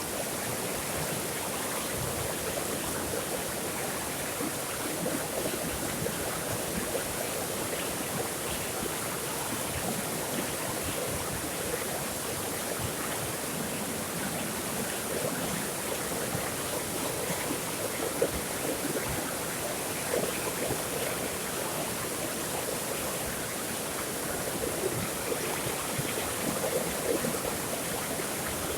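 Flowing water, like a small stream: a steady, continuous rush with fine splashing flicker throughout.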